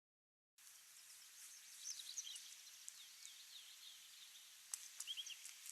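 Faint high chirps and tweets of small birds over a steady hiss, starting after a brief moment of dead silence. Two sharp clicks come shortly before the end.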